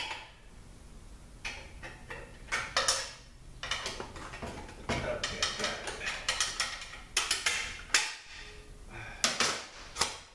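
Steel pick and screwdriver clicking and scraping against a snap ring and the clutch parts inside a ZF6HP26 automatic transmission case: an irregular run of sharp metallic clinks and rattles, some ringing briefly, as the snap ring is worked out of its groove.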